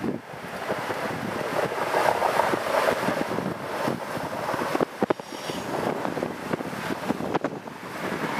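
Indian Pacific passenger carriages rolling past on a curve, with irregular sharp clicks from the wheels on the rails over a steady rushing noise, and wind buffeting the microphone.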